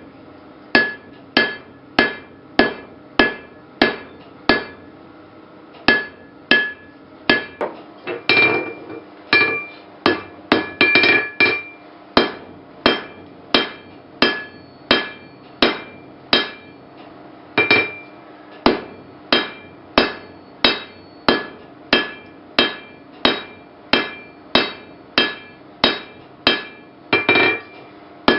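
Blacksmith's hammer forging steel on an anvil: steady blows about one and a half a second, each with a metallic ring. A short pause about five seconds in, and a run of quicker strikes around eight to twelve seconds in.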